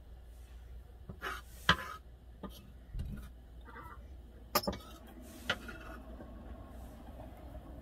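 Kitchen utensils and dishes clinking and knocking a few times, the sharpest knock about two seconds in and two more near the middle, over a low steady hum.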